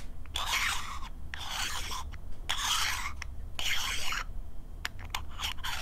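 Small aluminum nozzle enclosure being twisted open by hand, its lid grating on the threads in a series of short rasping strokes, about one a second.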